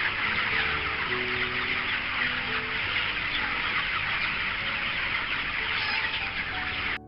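A dense, continuous chorus of many broiler chickens clucking and cheeping together in a poultry house.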